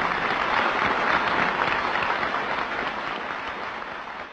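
Banquet audience applauding, the applause slowly dying away over the second half.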